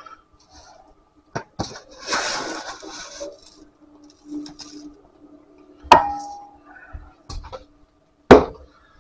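Rolled oats poured from a measuring cup into a stainless steel mixing bowl, a brief rustling pour, with several sharp metal clinks of the cup knocking against the bowl and canister; the two loudest clinks come about six and eight seconds in.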